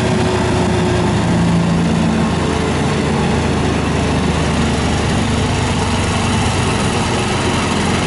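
Small engine of a trailer-mounted wood chipper running steadily at speed.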